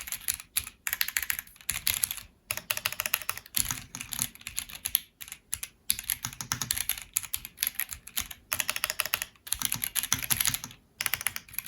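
Typing on a Jamesdonkey A3 mechanical keyboard with Gateron G Pro 2.0 Silver linear switches and PBT keycaps: fast runs of keystroke clacks broken by short pauses.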